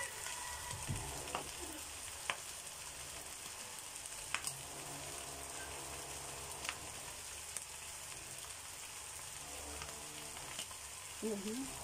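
Beef frying in a pan, a steady sizzle, with a few sharp clicks of a utensil against the pan.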